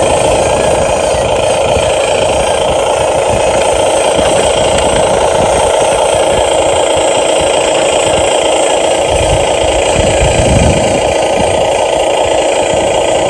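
Huina 1550 radio-controlled toy excavator running: the steady whine and rattle of its small electric motors and gearboxes.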